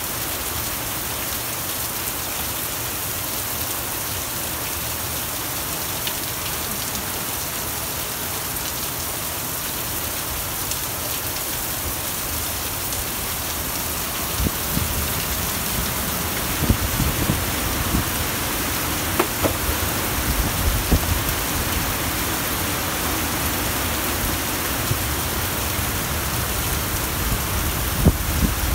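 Heavy rain hissing steadily in a severe thunderstorm; about halfway through, strong wind gusts set in with an uneven low rumble and sharp buffeting spikes.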